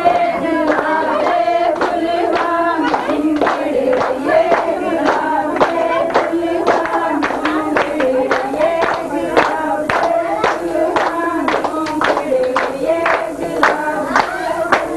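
A group of voices singing a song together, with hand clapping keeping a steady beat of about two claps a second.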